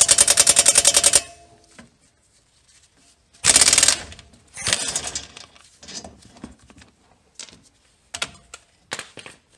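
Pneumatic impact wrench hammering rapidly as it spins a brake caliper bracket bolt loose, stopping about a second in; a second short burst comes a couple of seconds later, followed by scattered metallic clicks and knocks as the bolt and caliper are handled.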